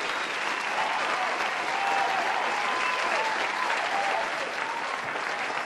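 A crowd of guests clapping steadily, with voices calling out over the applause, as the bride garlands the groom.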